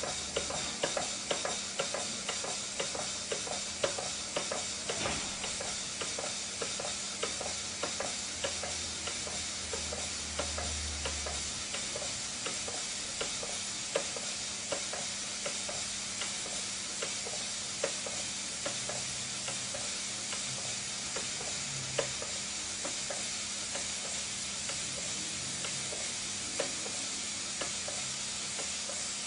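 Stevens Model Dockyard brass model horizontal engine running steadily: a continuous hiss with regular quick clicks from the cylinder and valve gear as the flywheel turns.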